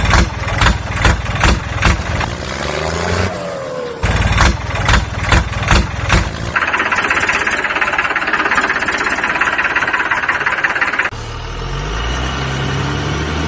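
Dubbed-in heavy vehicle engine sound effect: the engine revs in a run of sharp, knocking bursts. After that comes a steady high whine of about four seconds. Then a lower engine note rises in pitch.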